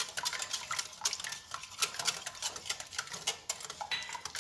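A fork whisking beaten eggs and oil in a glass bowl, the tines clicking quickly and repeatedly against the glass.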